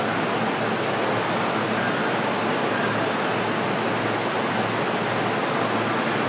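Steady interior noise inside a JR East E233-series commuter train car: an even rush with a faint low hum underneath, holding level without any change.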